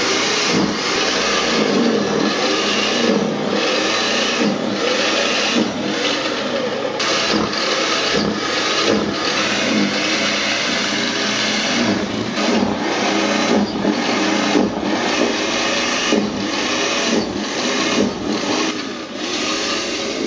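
Small snowblower running steadily while clearing snow, its motor pitch wavering up and down with brief dips about every second.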